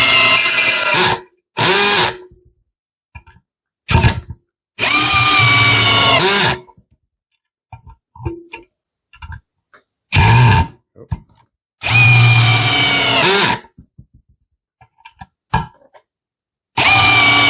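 Parkside Performance PABS 20-Li C2 20 V brushless cordless drill in its fast second gear, driving screws into wood in several runs of one to two seconds with short trigger taps between. The motor whine sags slightly in pitch during each run as the screw bites.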